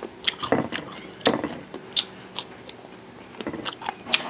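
Close-miked eating: chewing with irregular crisp clicks and crunches.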